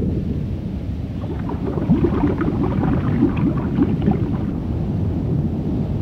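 Steady low underwater rumble with scattered light crackles about two to four seconds in.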